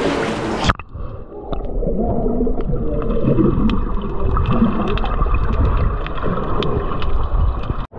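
Underwater sound from a camera dipped below the sea's surface under a second in: muffled churning water and bubbling, with scattered sharp clicks. The camera breaks the surface again near the end.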